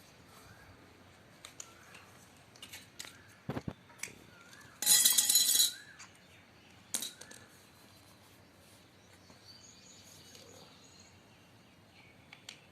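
Scattered clicks and knocks of a marble grinder and tools being handled, with one loud, rattling burst lasting about a second, roughly five seconds in. Faint bird chirps sound in the background.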